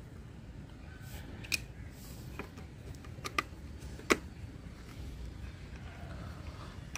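A few sharp plastic clicks and taps as helmet visor parts are handled, the loudest about four seconds in, over a low steady hum.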